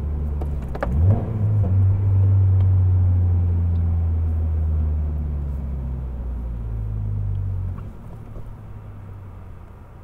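Toyota GR86's flat-four engine heard inside the cabin during a rev-matched downshift. About a second in, a quick throttle blip raises the revs to match the lower gear, and the engine note then slowly sinks as the car slows. Near the end it drops to a quiet idle.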